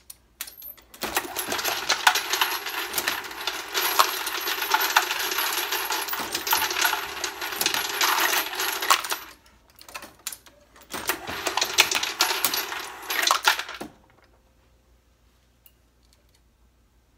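Brass 9mm cartridge cases clattering and jingling against each other, a dense metallic rattle in two spells: about eight seconds, a short pause, then about three seconds that cut off sharply.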